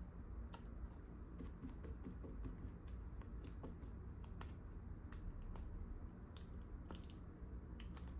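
Trading cards being handled and flipped through, with many faint, irregular light clicks and flicks over a low steady hum.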